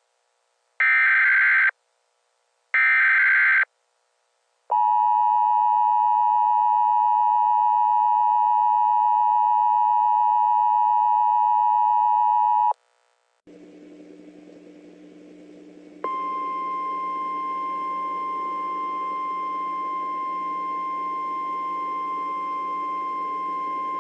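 Emergency Alert System activation: the last two of three SAME header bursts, harsh warbling buzzes about a second long and a second apart, then the EAS two-tone attention signal held steadily for about eight seconds. After a short break a low hum starts, and about sixteen seconds in a steady single high tone joins it and holds.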